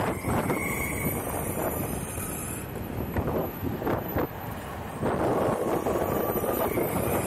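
Wind buffeting the microphone over the low rumble of electric skateboard wheels rolling on asphalt, with a few sharp knocks. The rumble drops for about a second a little past four seconds in, then comes back.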